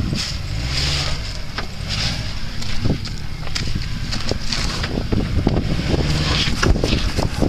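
Wind buffeting the microphone over the engine and tyres of a modified Subaru Liberty crawling up a rocky track, with a few faint knocks.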